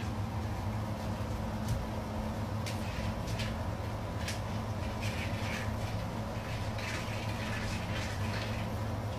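A steady low hum, with a few faint scattered taps and scratches of a cat's claws against a wooden door as it clings to the top edge.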